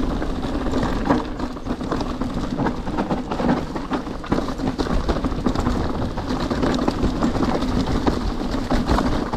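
Mountain bike rolling over a rough trail, with the frequent clatter and knocks of the bike over bumps and a steady low hum throughout.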